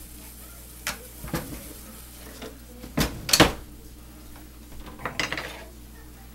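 Kitchen utensils and cookware clinking and knocking: a few separate clatters, the loudest a pair about three seconds in, then a short cluster near the end.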